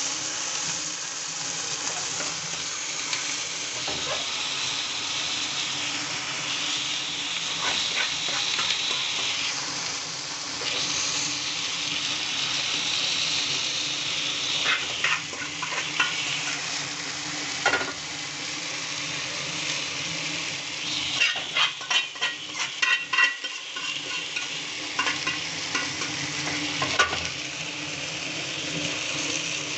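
Food frying and sizzling steadily as it is stirred, with a cooking utensil knocking and scraping against the cookware; a quick run of knocks comes about two-thirds of the way through.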